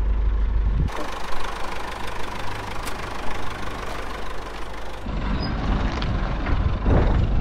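Forklift engine running at idle while it holds a lifted truck cab. A few seconds of thinner, hissy noise interrupt the rumble in the middle.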